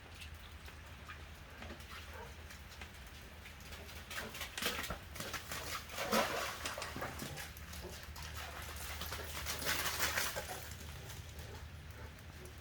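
A dog dashing about in short noisy bursts of scuffling and clicking, about three times, over a steady low hum.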